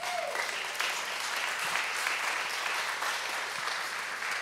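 Congregation applauding: a steady round of clapping from many people.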